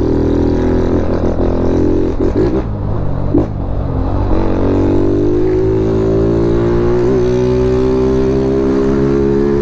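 Honda Titan 160 single-cylinder four-stroke running through a gutted aftermarket tin exhaust, loud as it rides along. The note dips briefly about three seconds in, then rises steadily as the bike accelerates.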